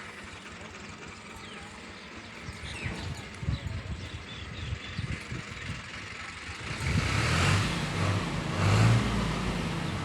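A motor vehicle's engine passing close by, getting loud about seven seconds in, peaking twice, then fading; faint bird chirps and low knocks before it.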